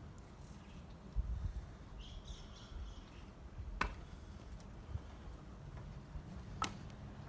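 Two sharp wooden knocks a few seconds apart, of firewood being handled during axe wood-splitting, with a short high chirp about two seconds in.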